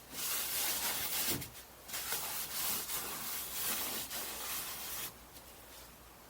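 A rag rubbing acetone over the camper's bed-liner paint, scrubbing at a white film on the surface: two long stretches of rubbing with a short pause about a second and a half in, stopping about five seconds in.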